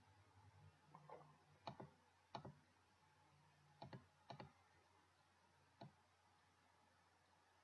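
Computer mouse button clicking several times, some clicks in quick pairs, then stopping.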